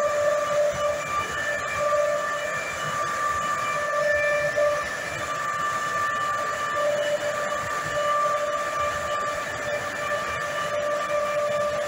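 Underground mine machinery running: a steady whine with several pitched tones that fade in and out, over a constant hiss.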